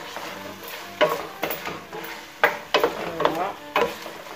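A wooden spatula stirring chicken frying in a stainless steel pot, scraping and knocking sharply against the pot several times over a low sizzle.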